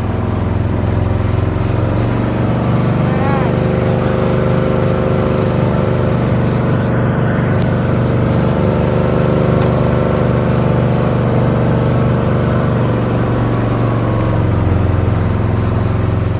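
Vehicle engine running at a steady speed while driving along, heard loud from on board, its pitch holding even throughout.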